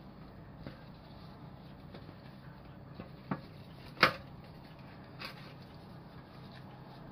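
Quiet handling of smoked pulled pork in a metal roasting tray by gloved hands, with a few short knocks against the tray, the loudest a sharp knock about four seconds in.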